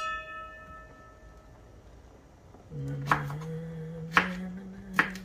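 A metal bowl clinks and rings out, fading over the first second and a half. Then a man hums a low steady tune while a knife chops okra, with three sharp knife strikes about a second apart.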